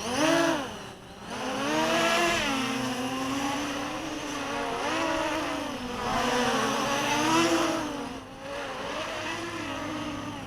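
A mini quadcopter's brushless motors and propellers buzzing in flight. The pitch rises and falls as the throttle changes, dropping away briefly about a second in and again just after eight seconds.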